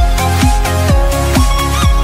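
Electronic background music with a steady deep kick drum about twice a second under a synth melody.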